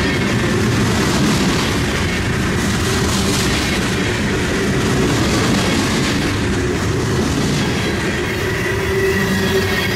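Long CN freight train's cars rolling past, a steady, loud rumble of steel wheels on the rails with a faint steady whine above it.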